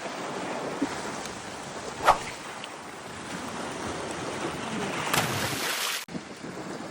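Waves and wind make a steady rushing noise. A single sharp knock comes about two seconds in. A louder hissing rush starts about five seconds in and cuts off suddenly.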